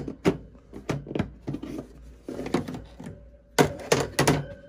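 Plastic storage bin handled on a wire shelf: its snap-on lid taken off and the brass gas fittings inside shifting, a series of knocks and clacks, the loudest just after the start and a cluster near the end.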